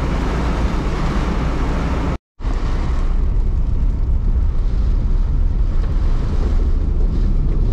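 Steady rumble of a car in motion, road and wind noise, broken by a short drop to silence about two seconds in.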